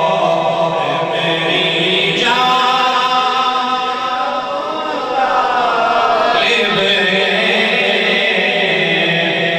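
Melodic religious chanting by voice, in long, drawn-out held notes with a slide down in pitch around the middle, amplified through a sound system.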